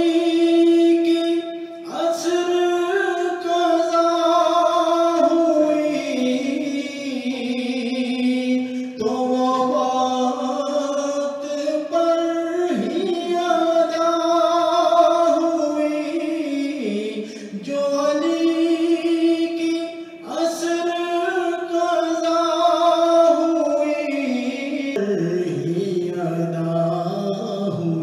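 A man singing a naat solo, in long held notes that waver and step up and down, phrases of a few seconds with short breaths between; near the end the melody drops lower.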